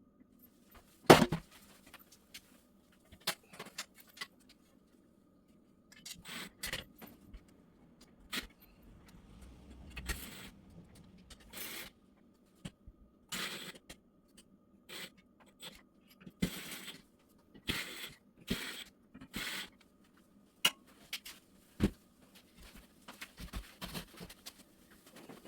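Intermittent clicks, knocks and short scrapes of hard objects being handled, with a sharp knock about a second in.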